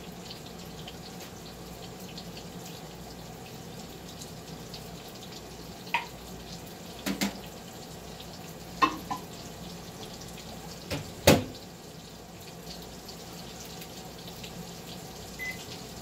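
Water running from a kitchen tap into the sink, with dishes knocking against it several times, the loudest about eleven seconds in, over veal cutlets frying in a pan.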